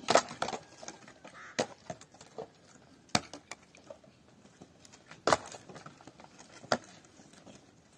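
Irregular sharp knocks and clicks, several close together at the start and then single ones every second or two, over faint handling noise.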